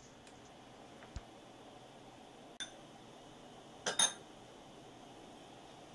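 Metal spoon clinking against a small glass bowl of cornstarch slurry: a faint tick about a second in, a click midway, and two sharper clinks close together near the four-second mark, over a faint steady background hiss.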